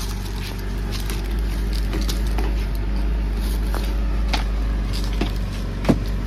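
Small speedboat's engine idling steadily, with a few sharp knocks in the second half as people step down onto the boat's deck.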